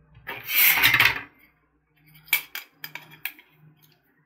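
A stainless-steel pocket multitool being handled: a loud rubbing scrape lasting about a second, then several sharp metal clicks as its parts are moved.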